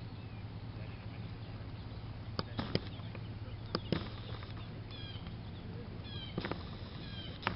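Steady outdoor background noise, with a bird chirping in short runs of quick falling notes through the second half, and a few sharp clicks.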